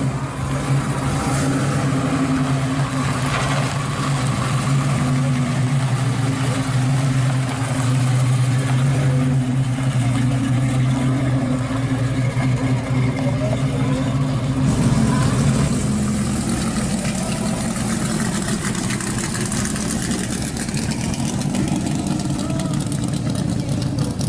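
A classic car's engine idling with a steady low tone. About 15 seconds in the sound cuts abruptly to a different car engine running, that of a red Cobra-style roadster.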